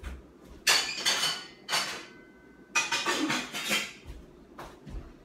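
Metal pots and pans clattering and clanking as they are rummaged through and pulled out of a cupboard, in two spells of clatter a second or so apart with a brief metallic ring between, then a few single knocks.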